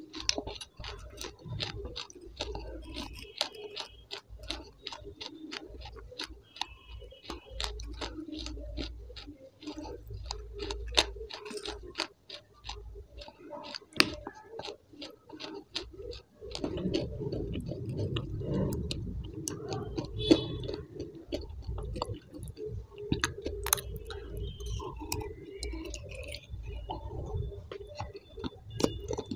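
Close-miked eating ASMR: crunching and chewing of hard clay-like chunks, a rapid run of sharp crisp crunches. From a little past halfway it gets louder and fuller.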